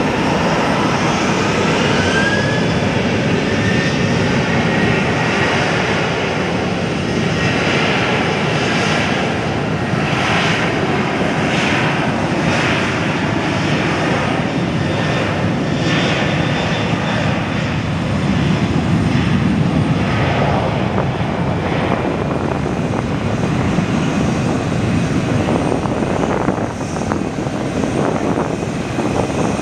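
Boeing 737-800's CFM56 turbofan engines running loud and steady at takeoff thrust, with a short rising whine about two seconds in.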